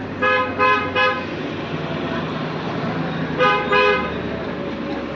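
Vehicle horn honking: three quick short toots, then two more a couple of seconds later, over a steady hum of traffic.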